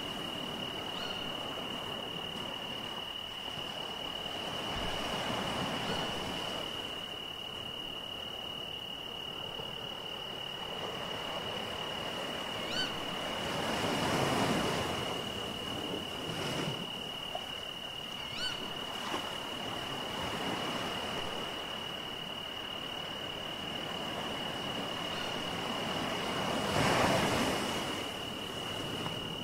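Sea waves washing onto a shore, two larger swells rising and falling about 14 s and 27 s in, over a steady high-pitched tone with a few short chirps.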